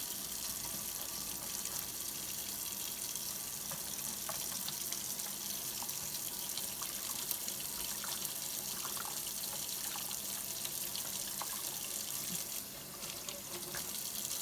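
Tap water running steadily from a faucet into a sink, with small splashes and drips from washing.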